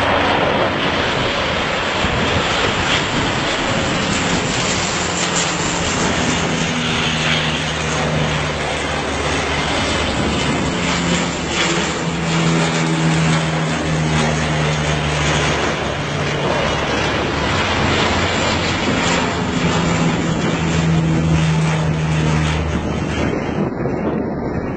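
Firefighting airplane flying past, its propeller engines giving a loud, steady drone over a rushing noise, with a low hum that grows and fades.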